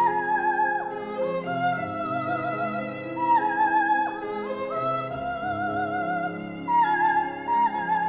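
Coloratura soprano singing a slow opera aria in held, high notes with vibrato, moving to a new pitch every second or two, over a sustained instrumental accompaniment.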